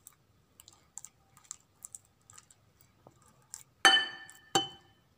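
Stainless steel potato masher mashing boiled ripe plantain in a glass bowl: a run of soft clicks and taps, then two loud ringing clinks of the metal masher striking the glass bowl about four seconds in.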